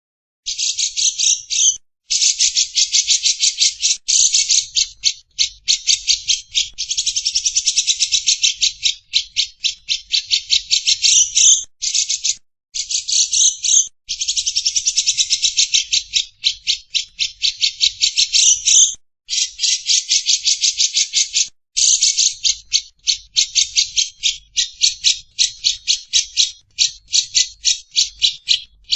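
Lovebird's long 'ngekek' chatter: harsh, high notes repeated about ten times a second in unbroken runs of several seconds, with a few brief pauses. It starts about half a second in.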